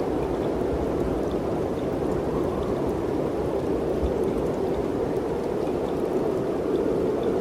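Mountain wind blowing steadily, a continuous low rush that barely rises or falls, with faint scattered ticks above it.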